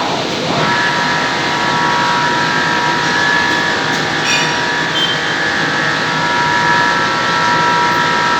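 Metal lathe running, with a steady high whine that sets in about half a second in over the machine's noise.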